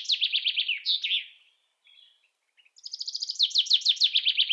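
A songbird singing: a fast trill of repeated falling notes ending in a short flourish, given twice with a pause of about a second and a half between the phrases.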